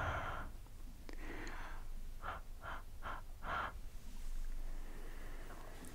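Close-up breaths huffed onto a camera lens to fog it: a couple of longer exhales, then four quick, evenly spaced puffs about two seconds in, and a softer breath near the end.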